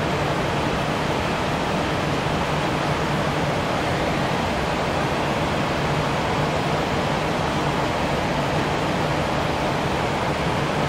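Steady rushing noise of a cruise ship's wake churning behind the stern, with a low steady hum underneath.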